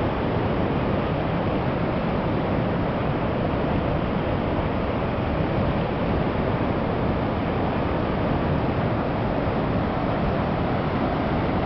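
Steady rushing roar of a large waterfall's rapids, an even unbroken noise with no change in level.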